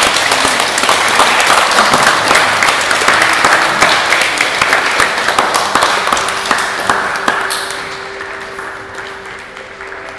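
A group of people clapping their hands. The applause thins out and dies away over the last few seconds.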